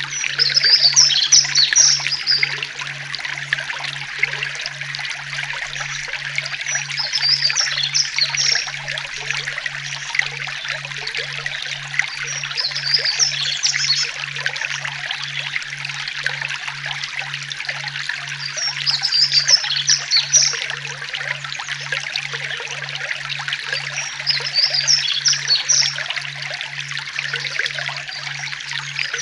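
Water trickling and rushing steadily, like a small forest stream, with a songbird singing a short burst of chirps about every six seconds.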